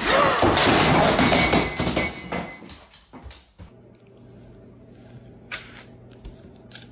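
Loud jumble of thumps and knocks for the first two or three seconds, dying away about three and a half seconds in. Then a quiet background with two short crunches as a person bites into a crisp snack.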